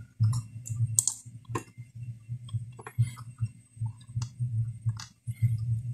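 Computer mouse clicking several times at irregular intervals, over a low background hum.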